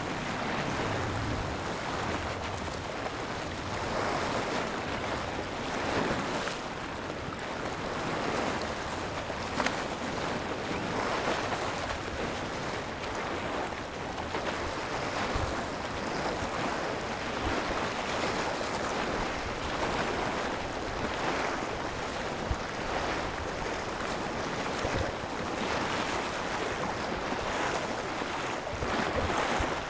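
Waves washing on the shore in an even rush that swells and eases every few seconds, with wind in the background.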